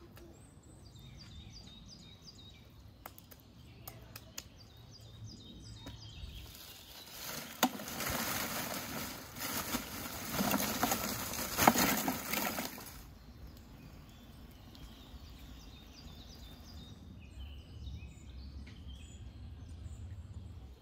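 Small birds chirping on and off over a low steady hum. From about six seconds in, a louder rushing noise with a few sharp knocks runs for about seven seconds, then stops.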